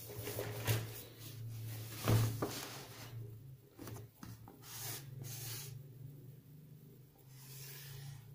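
A cardboard box being handled, rubbed and slid across a paper-covered tabletop, in rustling bursts that are heaviest over the first few seconds and loudest about two seconds in, with shorter scrapes later. A steady low hum runs underneath.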